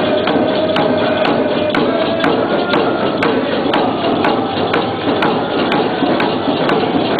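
Moccasin game (hanpapecun) song: a steady percussion beat about twice a second, with singing over it.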